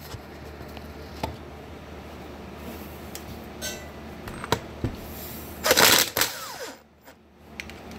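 A cordless power tool run briefly against one of the caps on a John Deere pump's outer housing, loosening it: a loud burst of about half a second around 6 s in, then a falling whine as the motor winds down. Scattered clicks and knocks from handling the tool and parts come before it.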